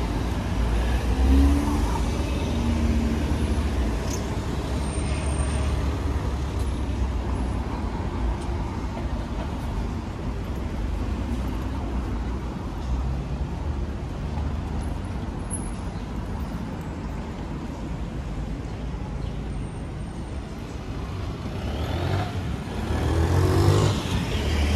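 Road traffic on a city street: cars running past with a steady low rumble. One vehicle grows louder as it passes close near the end.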